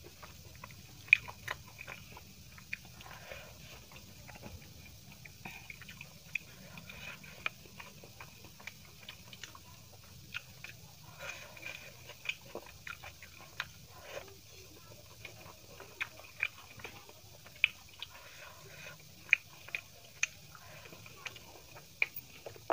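Close-miked eating sounds: chewing a mouthful of chicken biryani, with irregular sharp wet mouth clicks a few times a second over a faint steady hiss.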